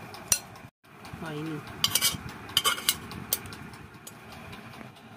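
Metal spoon clinking and scraping against a serving bowl and the cooking pot while mutton paya soup is spooned out, with several sharp clinks in the middle.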